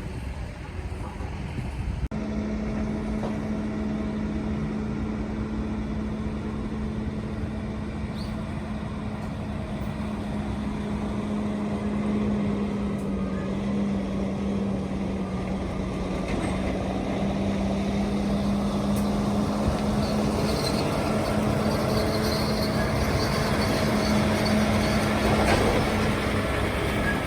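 Hydraulic excavator at work: its engine and hydraulics run continuously, with a steady droning tone that sets in about two seconds in and grows slightly louder later.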